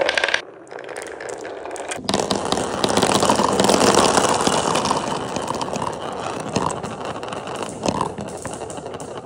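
Marbles rolling and rattling down plastic tubes and clattering into a container of other marbles. The clatter swells about two seconds in and thins out to a few single clicks near the end.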